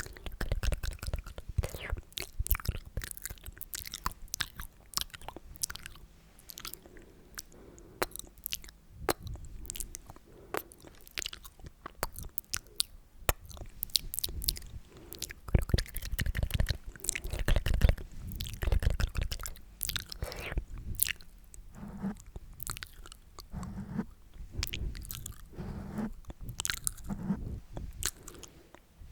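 Close-miked sticky, wet mouth sounds: rapid irregular clicks, smacks and tongue pops made ear to ear for ASMR, with some denser, louder stretches in the middle.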